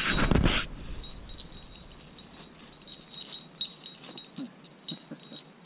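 Leafy ground cover rustling and thrashing as a young Weimaraner lunges and pounces into it, loudest in the first half-second, then scattered softer rustles and clicks. A thin, steady high insect tone sounds underneath.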